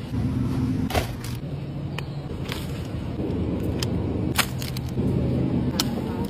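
Low rumble of a shopping cart being pushed, with sharp clicks and knocks as packaged groceries are picked up and put into the wire cart.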